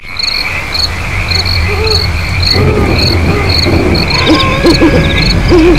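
Night-time insect and animal ambience: crickets chirping in an even repeating pulse over a steady insect drone and a low rumble, with low hooting calls coming in about two seconds in and growing busier near the end.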